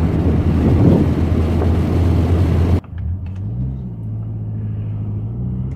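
2009 Mazdaspeed3's turbocharged 2.3-litre four-cylinder engine running under load on the road, with a broad rush of wind and road noise. About three seconds in the rush cuts off sharply, and the engine note rises and then holds steady. No knock is audible, at the point where the owner would normally expect to hear one.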